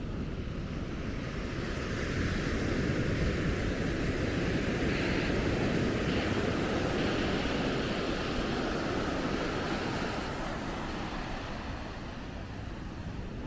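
Sea surf breaking and washing up the beach, swelling for several seconds and easing off near the end, with wind rumbling on the microphone.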